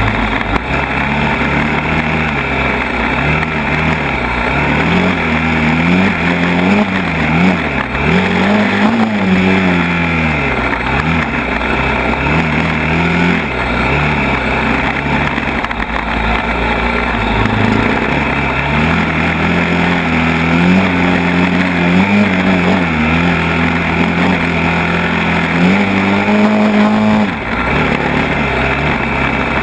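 ATV engine running under changing throttle, its pitch rising and falling over and over as it accelerates and eases off. Near the end it revs up high, then drops off suddenly.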